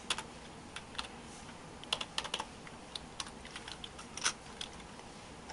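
Computer keyboard keys clicking as a line of code is typed slowly with one hand, in irregular single keystrokes with a quick run of several about two seconds in.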